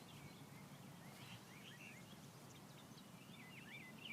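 Faint birdsong: a small bird repeating short chirping phrases over quiet outdoor background noise.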